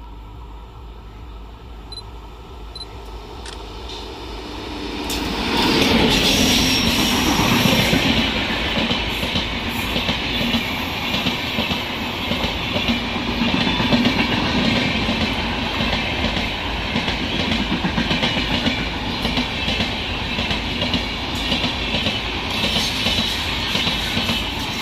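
Express passenger train passing close at speed: faint as it nears, then loud and steady from about five seconds in as the coaches' wheels run over the rails.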